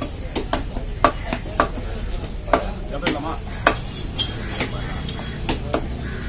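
A large curved fish knife tapping and chopping against a wooden cutting block as small fish are cut, about ten sharp knocks at irregular spacing over a steady low rumble.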